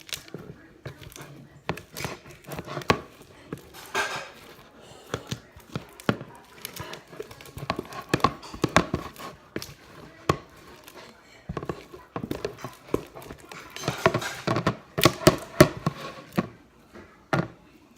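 Freshly made slime being mixed and kneaded by hand in a bowl: an irregular run of sticky squelches, slaps and taps, busiest and loudest near the end.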